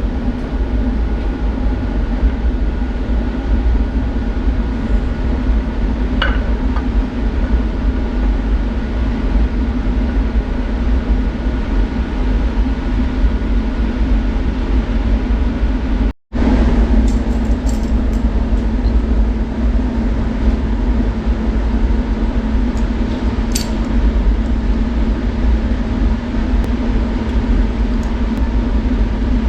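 Steady, loud mechanical hum with a low rumble and a few constant tones, like a machine or fan running nonstop. There are a couple of light clicks, and the sound cuts out for an instant a little past halfway.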